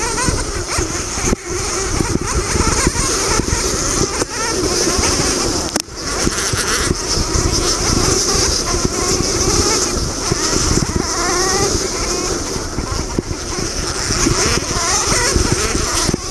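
KTM 200 XC-W two-stroke dirt bike engine running hard at race pace, its pitch climbing several times as it revs, with heavy wind rumble on the microphone.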